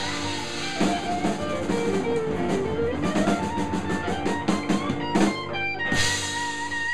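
Live blues band: electric guitar lines over a drum kit, with a quick run of drum strokes building to a loud crash about six seconds in, after which a single high guitar note rings on.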